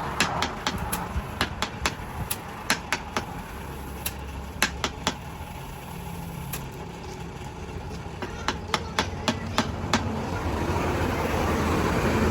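A series of sharp, irregular taps or knocks, bunched in quick clusters, over a steady low machine-like hum.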